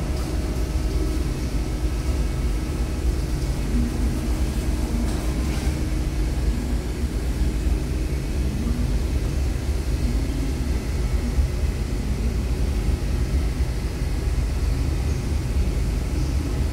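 Steady low engine rumble with a faint constant hum above it.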